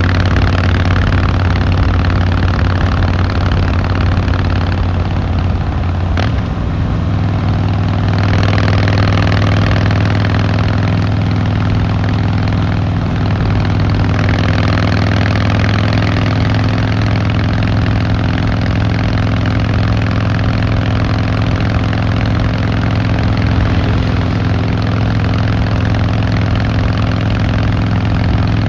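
Harley-Davidson Fat Boy Lo's V-twin engine and exhaust running steadily while riding. About six seconds in there is a short click, and the engine note steps slightly higher.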